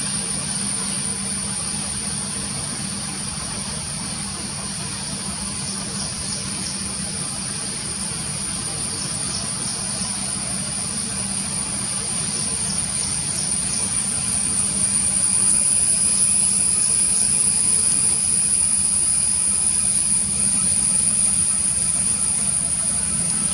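Jet engines of a Boeing 737 MAX (CFM LEAP-1B turbofans) running during takeoff: a steady rumble and hiss with a thin high whine, growing louder about fifteen seconds in.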